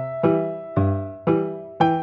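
Background music: gentle keyboard chords struck about twice a second, each fading before the next.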